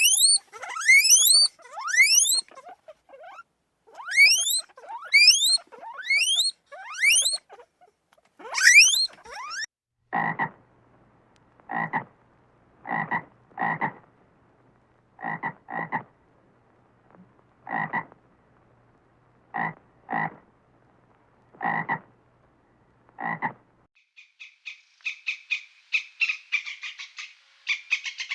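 Frog croaking: single short croaks spaced a second or two apart, some in pairs. Before them come repeated high squeaks that sweep sharply upward in pitch, and near the end a rapid high trill begins.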